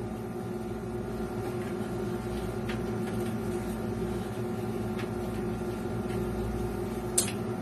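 Steady machine hum made of several fixed tones, holding an even level, with a few faint clicks, one a little louder near the end.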